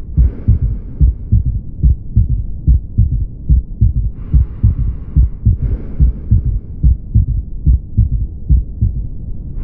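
Heartbeat with a third heart sound (S3): each beat of about 70 a minute has an extra low thud after the second sound, giving a three-beat gallop rhythm. A hiss joins for about a second and a half from about four seconds in.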